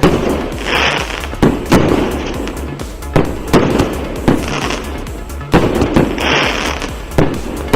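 A 364-shot, 1–1.2-inch-calibre firework cake firing: sharp launch and burst reports at irregular intervals, sometimes two within half a second, with hissing crackle between them. Background music with a steady low beat plays underneath.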